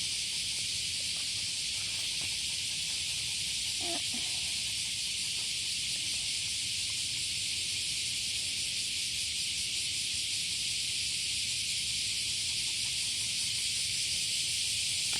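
Cicadas singing in a chorus: a continuous, even, high-pitched buzz.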